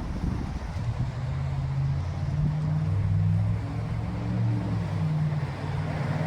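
A low, steady motor drone with a few held low tones, over wind rumbling on the microphone.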